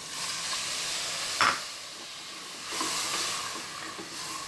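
Rice-washing water poured into a pressure cooker pot of hot frying chicken masala, hissing and sizzling as it hits. A sharp knock comes about a second and a half in, then the hiss swells again as the curry is stirred with a wooden spatula.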